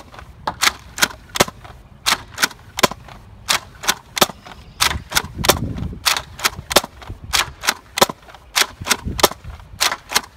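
Spring-powered Nerf Retaliator, converted to pump action with an upgraded spring and an Orange Mod Works kit, being pumped and fired shot after shot. It makes a steady run of sharp plastic clacks, about three a second.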